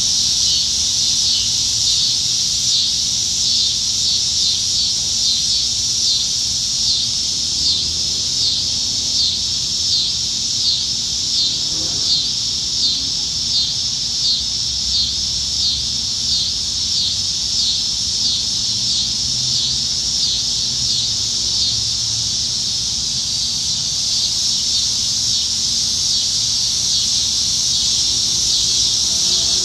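A chorus of cicadas singing in the trees: a dense, high, continuous buzz that swells in a steady rhythm, a little over once a second.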